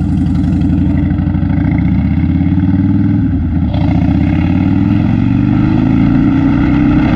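Harley-Davidson Dyna Wide Glide V-twin running through its exhaust with a deep, even rumble; the note climbs a little near the end. The exhaust has just been resealed with new gaskets and a replaced stud, and sounds much meatier.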